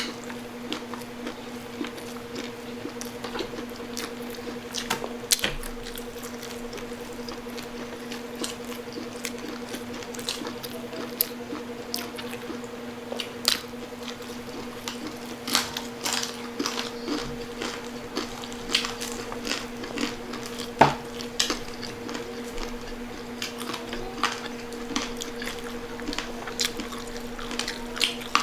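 People chewing crispy pata, crunching the crisp pork-knuckle skin with wet mouth sounds and many scattered sharp clicks, over a steady low hum.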